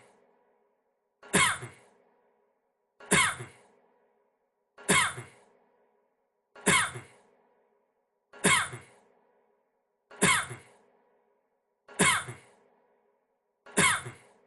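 A man's single short cough, repeated as an identical loop about every 1.8 seconds, eight times in a row.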